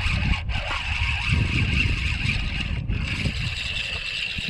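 Spinning reel being cranked to bring in a small flounder, its gears giving a steady high whine that breaks off briefly twice. A low rumble sits underneath.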